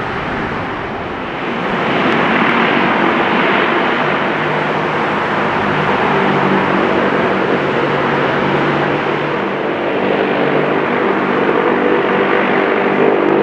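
Antonov An-22's four Kuznetsov NK-12MA turboprops with contra-rotating propellers running loud as the aircraft rolls along the runway. The steady roar swells about a second and a half in, and a drone of several steady low tones comes in about five seconds in.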